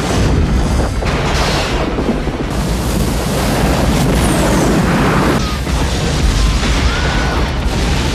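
Film sound effects of an asteroid impact: a loud, continuous deep rumble of explosion and destruction, with dramatic music underneath.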